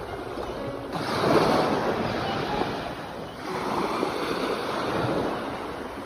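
Sea waves washing in, with a surge about a second in and another about halfway through.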